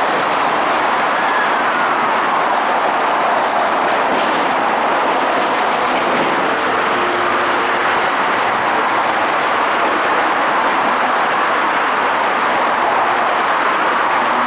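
Osaka Metro Midosuji Line electric train pulling out and running away along the track, a steady rush of wheel and motor noise with a few light clicks, mixed with constant road traffic noise.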